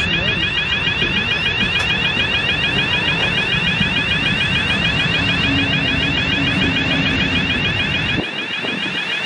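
Heritage wooden passenger carriages rolling past with a steady low rumble of wheels on track. A fast, continuous electronic alarm rings over it. The low rumble drops away abruptly near the end.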